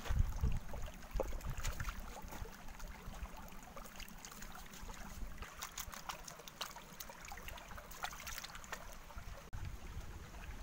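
Shallow stream trickling over stones, with scattered small splashes and scrapes as hands scrub a flat stone in the water. A low rumble in the first couple of seconds.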